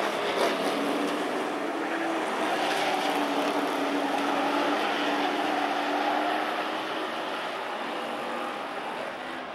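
Super Pro race trucks' engines running hard around the oval: a steady drone whose pitch sags slightly and then holds.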